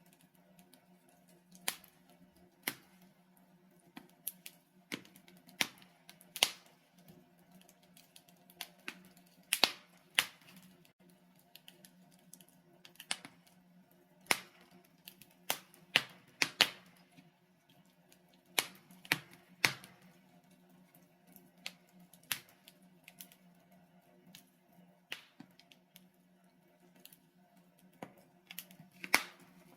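Logs burning in a fireplace, crackling and popping at irregular intervals, with a steady low hum underneath.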